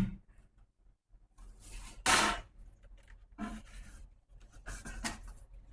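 Handling noises from taking the screen out of the bubble remover: brief rubbing and scraping sounds, the loudest a short burst about two seconds in.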